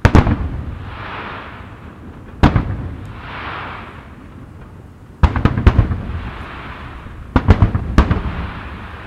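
Aerial firework shells bursting: a sharp bang at the start, another about two and a half seconds in, then quick clusters of several bangs about five and seven seconds in, each followed by a rolling rumble. A soft hiss swells and fades between the bursts.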